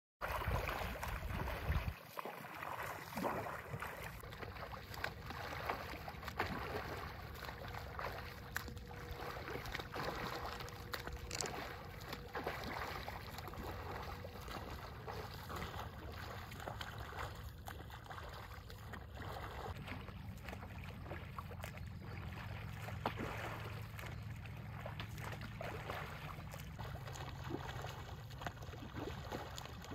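Irregular splashing of a freestyle swimmer's arm strokes and kicks in calm lake water, with water lapping around a paddle board alongside. A heavier, louder rumble fills the first two seconds.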